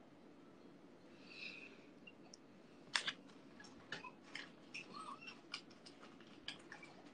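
Faint, irregular small clicks and ticks over a low steady hum, beginning with one louder click about three seconds in and followed by a dozen quieter ones.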